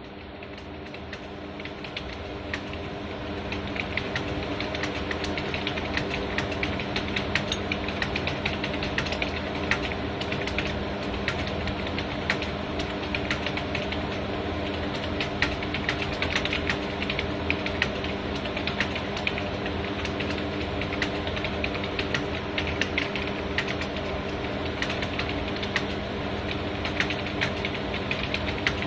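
Rapid, continuous keyboard typing: quick, irregular key clicks several times a second over a steady low hum, during a Hindi typing speed test.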